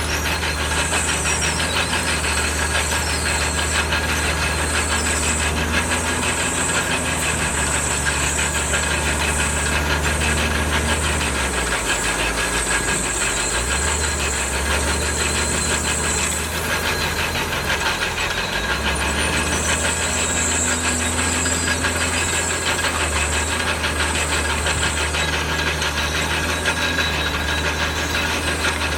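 Diesel engine of heavy earthmoving machinery running with a steady rapid clatter and a high-pitched whine that comes and goes. The low engine note changes in the middle, as the machine's load shifts.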